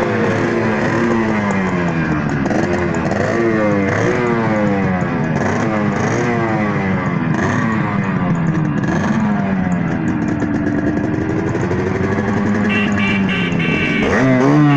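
Small two-stroke motorcycle engine being revved again and again, its pitch climbing and dropping in quick succession, then one slower rise and fall near the end.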